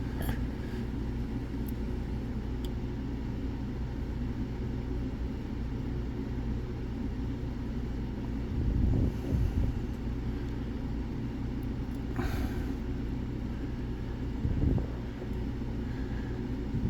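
Steady low background rumble with a few faint clicks and some light knocks, from a pick and tension tool working the security and trap pins of an ERA Fortress lock cylinder.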